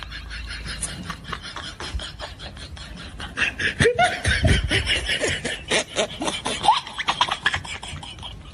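Laughter in quick, even pulses, growing louder about three and a half seconds in.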